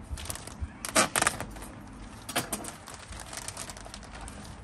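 Scattered crackling clicks and rustles, with the loudest cluster about a second in, from potting compost being handled and mixed by hand in a plastic bucket.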